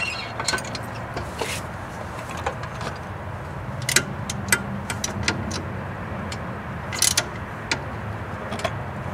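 Scattered sharp metal clicks of a ratchet and socket working a rear suspension link bolt, over a steady low hum.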